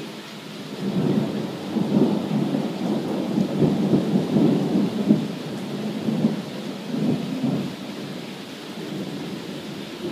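A long roll of thunder over steady rain. The low rumble builds about a second in, rolls on loudly for several seconds, then dies away, while the rain's hiss continues underneath.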